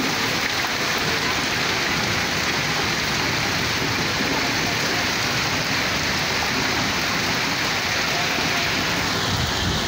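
Monsoon rain falling steadily on wet concrete paving.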